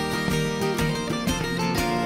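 Background music on a plucked string instrument: a quick run of picked notes, then a chord struck near the end that rings on.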